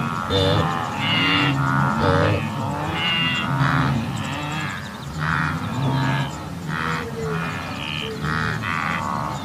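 A group of wildebeest (gnu) calling: short grunting calls repeating about once or twice a second, several animals at different pitches overlapping one another.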